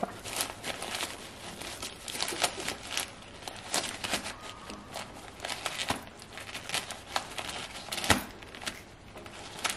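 Packing paper crinkling and tearing as an Italian greyhound chews and tugs at a paper-wrapped treat: irregular crackles and rustles, with a louder crackle near the end.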